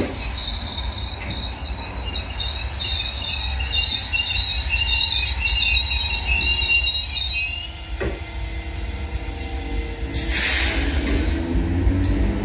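Irish Rail 8300 class DART electric train's wheels squealing, a high steady squeal for about the first eight seconds as the train runs along the curved platform. The squeal then stops, a single knock follows, then lower running noise with a brief rushing burst, all over a low rumble.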